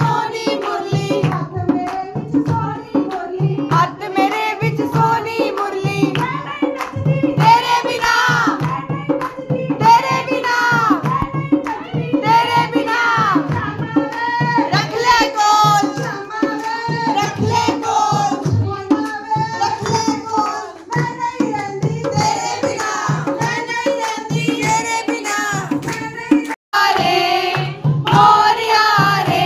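Women singing a devotional kirtan with a dholak drum keeping a steady rhythm and hand clapping along.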